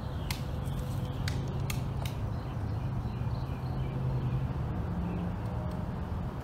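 A few sharp metallic clicks and taps from muzzle-loading rifles being handled during loading drill, mostly in the first two seconds, over a steady low hum.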